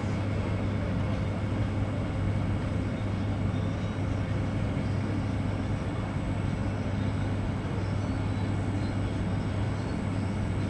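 A steady low motor hum over a constant wash of outdoor background noise.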